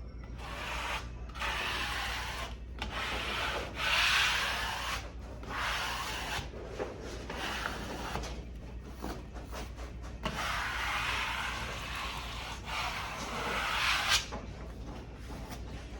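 Freshly pasted wallpaper being smoothed down along a cut seam to close it: a tool rubbed over the paper in a series of scraping strokes, each a second or so long, with one longer stroke near the end.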